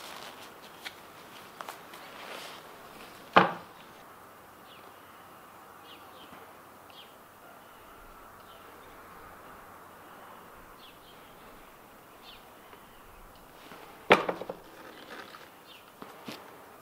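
Handling a metal pail of topcoat: a sharp knock about three seconds in and another near the end, followed by a few lighter clicks. In between there are faint short high chirps.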